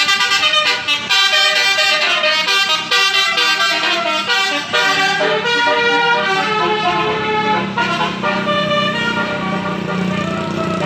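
Telolet basuri multi-tone horns playing quick melodic runs of notes, several horns answering one another. A low steady drone comes in about seven seconds in.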